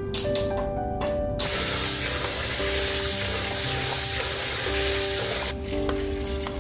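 Background music, with a steady rush of spraying water that starts about a second and a half in and cuts off abruptly about four seconds later.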